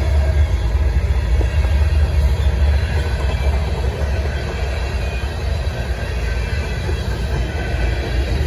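A freight train of railroad tank cars rolling past close by: a steady, loud rumble of wheels on the rails.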